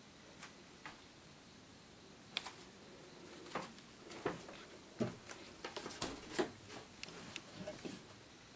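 Scattered light clicks and knocks: a few at first, then many in quick, irregular succession from about three and a half seconds in.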